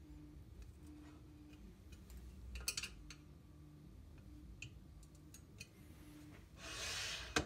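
Faint scattered clicks and light metallic ticks of VORON 3D printer gantry and extrusion-frame parts being handled, with a louder cluster of clicks about two and a half seconds in. Near the end comes a short rubbing rasp, ending in a sharp click.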